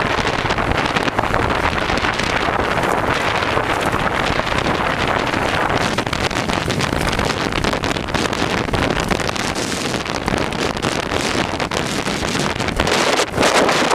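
Wind buffeting the microphone on a moving motorcycle: a loud, steady rushing noise with low road and vehicle noise beneath it. It eases a little from about ten seconds in and picks up again near the end.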